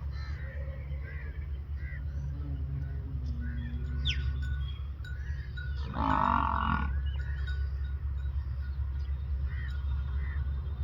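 Buffalo calling: a faint low moan a couple of seconds in, then one louder, about one-second bellow about six seconds in, over a steady low rumble with small high chirps scattered throughout.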